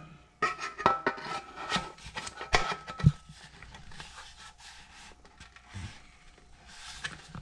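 A hard plastic part being pushed and worked into place against the metal base of a George Foreman electric grill: several sharp clicks and knocks in the first three seconds, the loudest about three seconds in, then softer rubbing and scraping.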